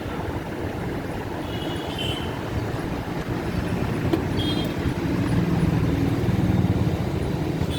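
Steady low rumbling background noise, like traffic, swelling slightly past the middle, with a few faint, brief high-pitched tones.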